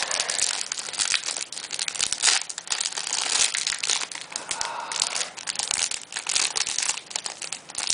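Packaging crinkling and crackling continuously as a trading-card box is opened and handled by hand.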